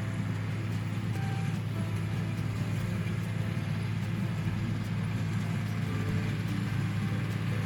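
Tractor engine running at a steady, even speed, a constant low drone. Faint music plays underneath.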